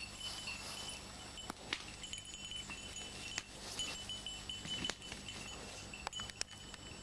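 The small bell on a hunting dog's collar tinkles on and off as the dog works through the brush. A few sharp snaps of twigs are heard along with it.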